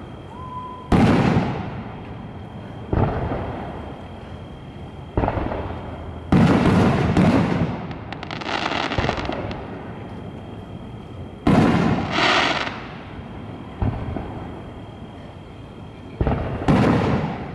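Aerial fireworks shells bursting overhead: about eight loud booms a second or more apart, each rolling away in echo, with a crackling hiss after two of them.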